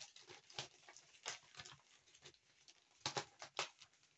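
Faint, scattered clicks and light taps of stamps and their plastic sheets being handled while one is chosen, with a few sharper clicks about a second in and again around three seconds in.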